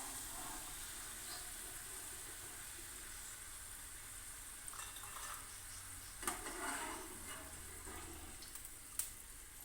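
Potato strips for French fries sizzling as they deep-fry in hot oil, a faint steady hiss. A few short scrapes of a spoon stirring them, a little after 6 seconds and again near 9 seconds.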